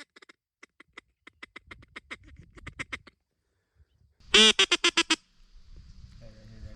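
Duck quacking in quick runs: a soft series of quacks that speeds up, then a loud, close burst of about eight quacks near the middle, followed by a low rumble.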